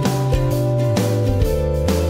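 Background music: a plucked guitar over a steady beat.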